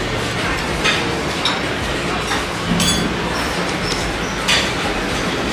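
Restaurant ambience: a steady background din with several short clinks of tableware, one of them ringing briefly near the middle.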